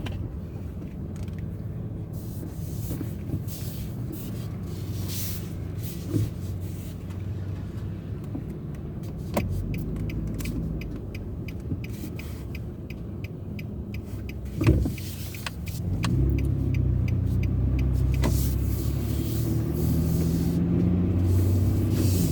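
Car engine and road noise heard from inside the cabin as the car drives off at low speed. There is a single thump about fifteen seconds in, and from about sixteen seconds the engine grows louder as the car speeds up.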